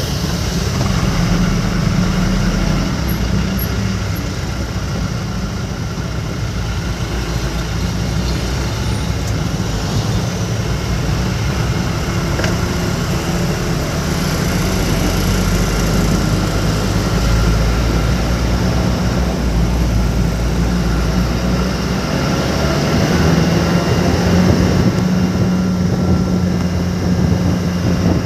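A truck's engine running steadily while driving, with a low hum that rises a little in pitch about two-thirds of the way in. An even hiss of heavy rain and wet road noise lies over it.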